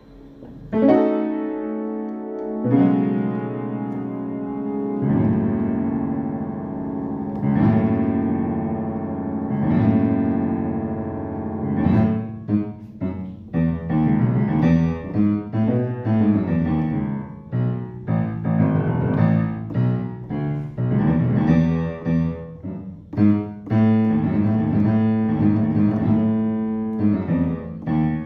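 Keyboard music: chords struck and held about every two and a half seconds, then a busier passage of quicker notes from about twelve seconds in.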